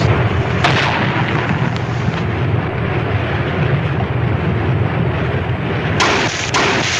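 Loud, sustained rumble with a deep low end, starting suddenly and cutting off abruptly, with two sharp cracks about six seconds in.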